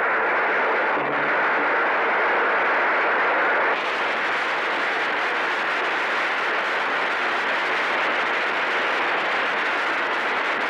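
A crowd applauding in a sustained ovation, heard through an old 1950s newsreel soundtrack. The sound is a steady, dense patter that changes tone abruptly about four seconds in.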